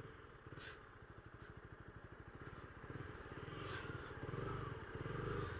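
Honda CB300R's single-cylinder engine running faintly at low revs, its firing pulses even, while the bike is taken slowly through a tight U-turn; it gets a little louder about three seconds in.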